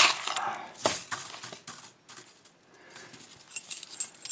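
Small metal lock-picking tools clicking and scraping against a padlock as a tension wrench is tried in the keyway, with a sharp knock about a second in and a brief metallic jingle near the end.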